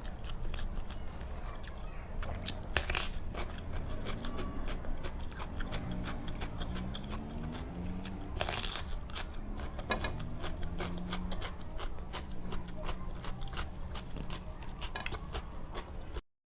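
Close-miked chewing and eating of fermented-durian curry (gulai tempoyak): wet mouth clicks and smacks, with two louder crunchy bites, one about three seconds in and one about halfway.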